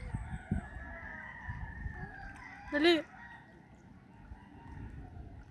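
A rooster gives one short, loud call about three seconds in, over low rumbling background noise.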